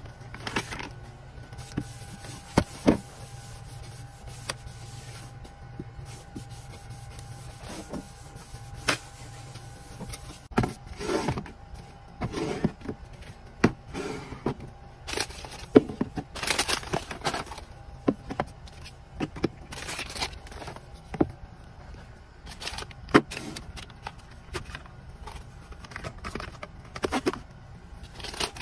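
Plastic pump bottles, a wet-wipes pack and small cardboard boxes being handled and set down on a wooden shelf: a steady scatter of taps, knocks and short packaging rustles, some clicks sharper and louder than others.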